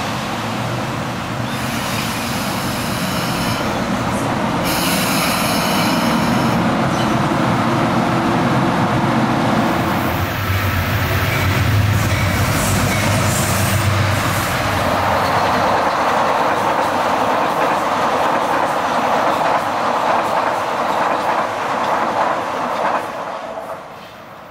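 Metro-North trains running past station platforms. First an electric multiple-unit commuter train rolls out with steady wheel-on-rail noise and two short stretches of high wheel squeal. Then a Metro-North GE Genesis P32AC-DM diesel locomotive runs through with a deep engine rumble under the wheel noise. The noise drops off sharply near the end.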